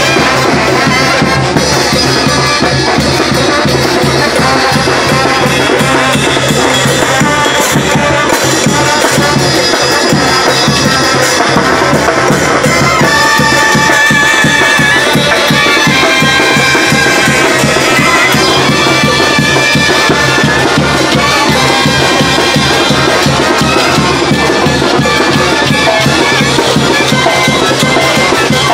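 A Mexican brass band (banda), with trumpets, trombones and drums, playing live and loud close to the microphone. There are sustained brass notes about halfway through.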